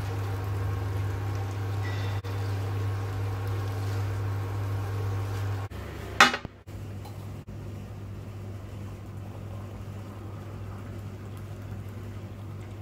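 Steady electrical hum while food is stirred in a frying pan on an induction hob. After about six seconds a glass tumbler is set down on a glass tabletop with one sharp clink, and water pours into the glass near the end.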